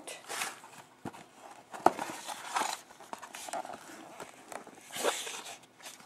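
Hands handling a graphics card's retail box and its packaging: irregular rustling and scraping, with a sharp knock about two seconds in.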